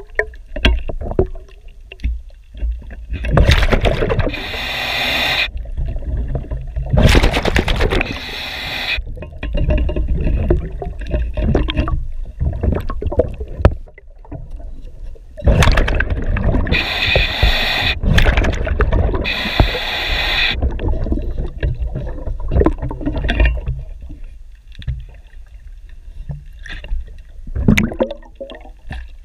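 Underwater sound of a diver cleaning a boat's propeller: bursts of rumbling, gurgling bubbles every few seconds, some with a bright hiss, with scraping and scrubbing against the propeller hub between them.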